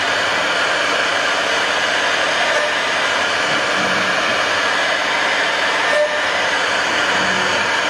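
CNC router spindle running with its bit cutting through a wooden board, giving a loud, steady cutting noise.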